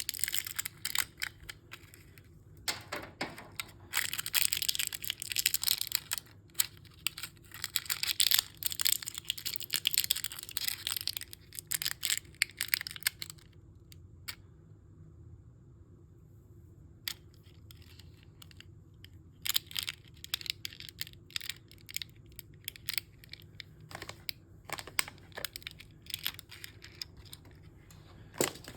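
Toy mystery bag packaging being handled and torn open, the wrapper crinkling and tearing densely for the first dozen seconds. After a few quiet seconds near the middle come scattered clicks and short rustles.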